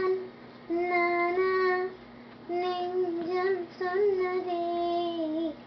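A young girl singing: short phrases of long held notes with brief pauses between them.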